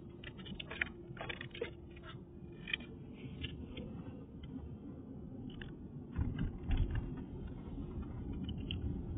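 Street ambience recorded on a walk: a steady low rumble with scattered small clicks and knocks, and a louder low rumble about six seconds in.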